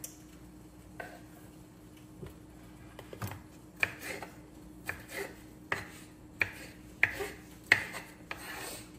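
Knife cutting bell peppers on a bamboo cutting board: sharp knocks of the blade on the board, about two a second, from about three seconds in.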